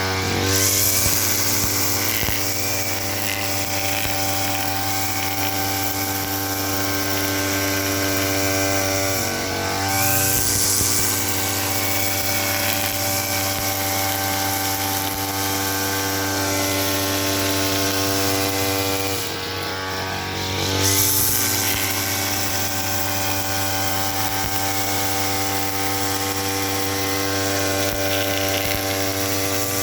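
Small engine of a grass-cutting machine running steadily at speed, with a high buzzing tone. Its pitch wavers briefly twice, about ten and twenty seconds in, then settles back.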